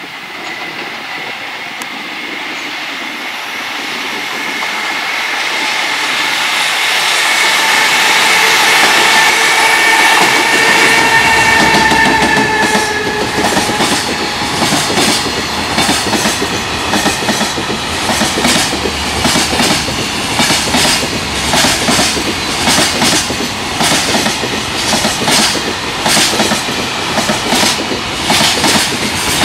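A JR Freight EF210 electric locomotive approaches and passes at speed. Its traction-motor whine grows louder and drops slightly in pitch as it goes by. Then a long train of container flat wagons rolls past with a steady clickety-clack of wheels over rail joints.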